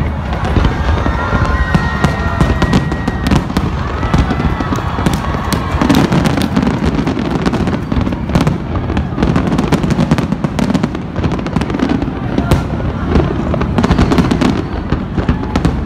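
A large aerial fireworks display, with shells bursting in rapid, overlapping bangs and crackles over a continuous low rumble.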